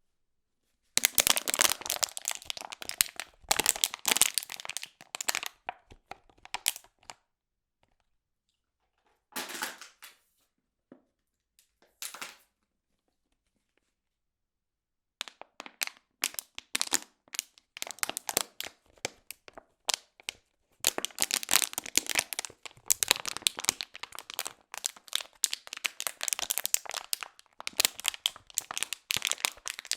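A drink container being squeezed and crushed by hand: dense crinkling and cracking in loud bursts, breaking off twice for a few seconds of silence before going on almost without pause in the second half.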